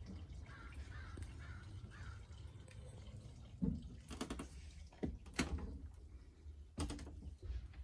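Handheld phone recording inside a small motorhome: a steady low rumble of handling noise, with sharp knocks and clicks from footsteps and handling from about three and a half seconds in. A few faint calls sound in the first two seconds.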